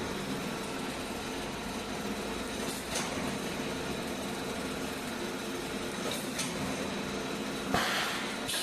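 Wire mesh welding machine running: a steady machine hum broken by a short noisy burst about every three seconds, with a longer, louder burst near the end.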